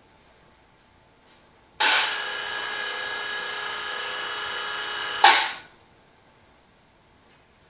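An electric hoist motor runs steadily for about three and a half seconds, starting and stopping abruptly, as it lifts the tractor engine on its chain.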